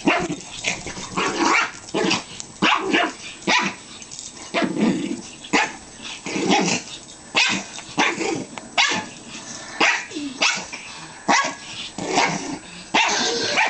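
Two small dogs, a Pomeranian-Chihuahua mix and a Jack Russell terrier, play-fighting: rough play growls and barks in short bursts about once or twice a second.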